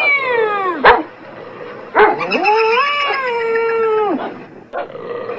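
Cat and dog calls: a whining call sliding down in pitch, a short sharp crack just before one second in, then one long drawn-out wail about two seconds in that rises, holds and falls away.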